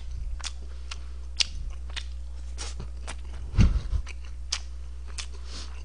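Close-up eating sounds: scattered short clicks and wet mouth noises of chewing fried rice, with a low thud about three and a half seconds in, over a steady low hum.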